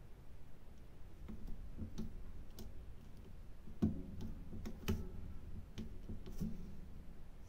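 Diamond-painting drill pen setting resin drills onto the adhesive canvas: irregular light taps and clicks, the two loudest about four and five seconds in.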